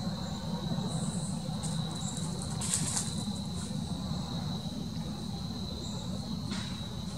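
Steady high-pitched insect trilling over a constant low rumble, with a short rustle about three seconds in and a fainter one near the end.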